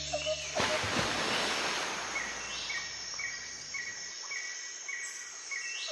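Woodland ambience: a steady outdoor hiss with a short, high-pitched chirp repeating nearly twice a second from about two seconds in. Background music cuts off in the first half-second.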